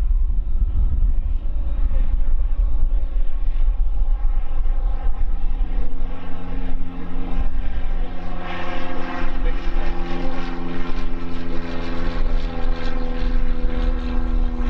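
Boeing 787-9's jet engines during a high-speed taxi test run. A deep rumble runs throughout. About five seconds in, an engine tone grows in and climbs slightly in pitch, and a jet roar builds from about eight seconds in.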